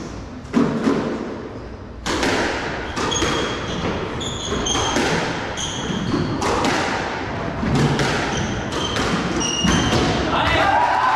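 Squash rally: the ball cracking off rackets and the court walls in quick, irregular hits, with short squeaks of court shoes on the wooden floor. Near the end the rally stops and the crowd starts to applaud and cheer.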